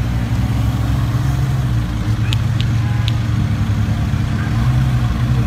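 Sports car engine running steadily at low revs as the car creeps past. Three short high ticks come about two to three seconds in.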